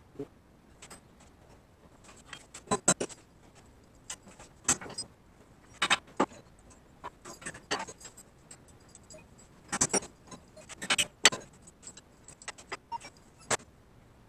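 Small metal parts clinking and tapping as they are handled and set down on a wooden workbench: a scatter of separate sharp clicks at irregular intervals.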